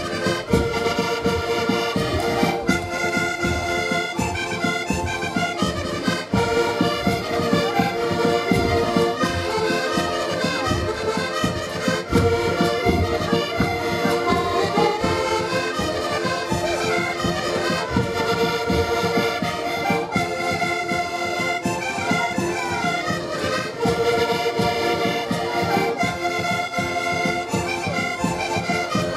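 Ensemble of eight Portuguese concertinas (diatonic button accordions) playing a tune together, with a steady beat from a bombo bass drum and a reco-reco scraper.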